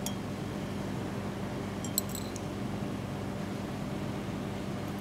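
Scissors snip once at a burnt matchstick tip: a single sharp metallic click with a brief high ring about two seconds in. A steady room hum runs underneath.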